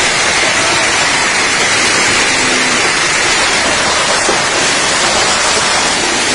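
Heavy storm rain and wind, a loud, steady rush of noise without a break.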